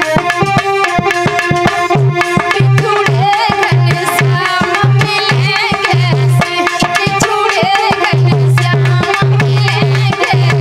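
Indian folk dance music: a fast hand-drum rhythm under a sustained melody line and low bass notes.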